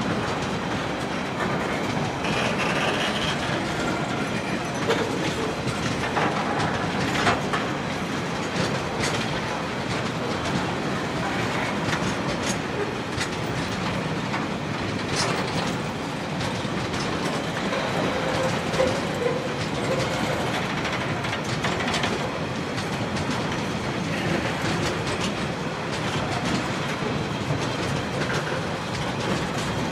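Empty log wagons of a freight train rolling past close by: a steady rumble of steel wheels on the rails, with irregular clicks and clanks from the wheels and wagons and a couple of brief squeals.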